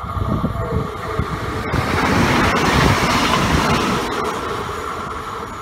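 Train passing on the line. The rushing rail and wheel noise swells about two seconds in, then slowly fades, under a steady high whine.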